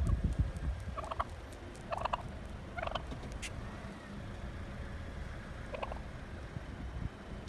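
Wild turkey calling: three short calls about a second apart, then one more near the end, over a steady low rumble.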